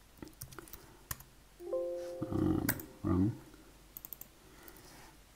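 Scattered computer keyboard keystrokes and mouse clicks as numbers are typed into a software field. Around the middle there is a brief hum and a short wordless voice sound, the loudest part.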